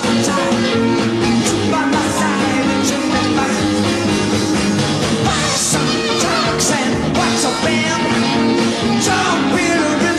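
Rock music with singing, a full band playing steadily at a loud level.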